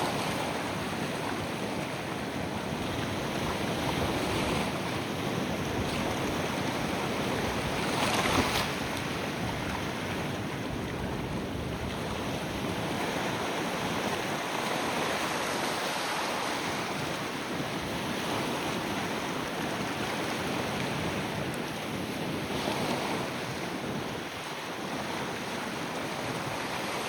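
Ocean surf washing in continuously, swelling a few times as waves break, loudest about eight seconds in.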